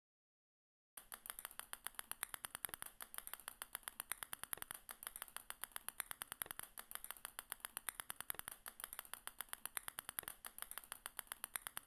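Animation sound effect of small balls dropping one by one onto a pile: a rapid, even string of light clicks, about nine or ten a second, starting about a second in.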